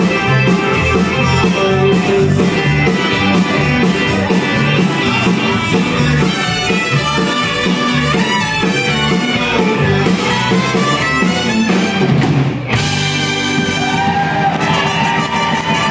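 Live Tex-Mex band playing, with accordion, trumpet, electric guitars, keyboard, bass and drums, and a brief break about thirteen seconds in.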